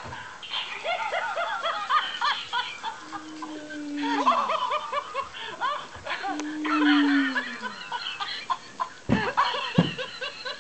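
Dog making rapid high squeaky yips and whines in quick strings that sound like laughter, twice broken by a longer, lower tone that slides downward. A few sharp thumps near the end.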